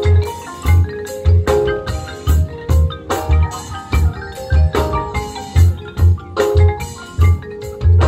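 High school marching band playing its field show: front-ensemble mallet percussion rings out a busy pattern of short notes over a steady low beat about twice a second.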